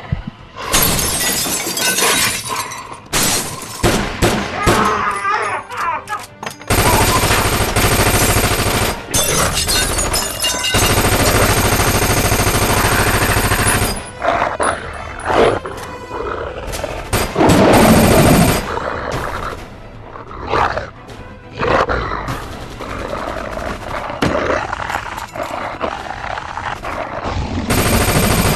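Film battle soundtrack: rapid bursts and long stretches of automatic rifle fire mixed with a dramatic music score, with creature roars among the shots.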